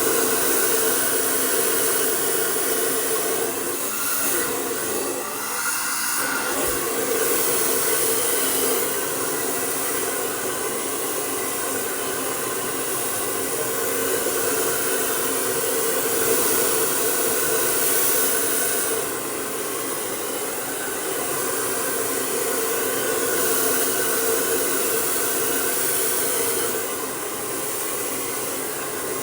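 Handheld hair dryer blowing on a section of hair: a steady rush of air over a constant motor hum, its loudness rising and falling slightly as it is moved.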